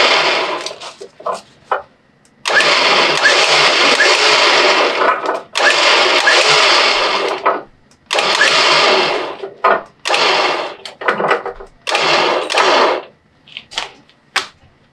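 Warn VR EVO 8s electric winch motor and gear train running, spooling synthetic rope in under wireless remote control. It goes in runs of one to three seconds that stop and restart several times with short pauses between.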